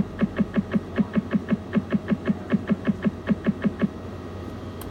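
Fixed-odds roulette terminal's win count-up: a rapid string of electronic blips, about five a second, as the winnings tally climbs. It stops about four seconds in, when the tally settles.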